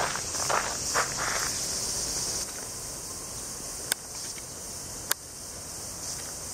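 Steady high-pitched insect drone, easing off a little after about two and a half seconds. A few footsteps come in the first second and a half, and two sharp clicks come later.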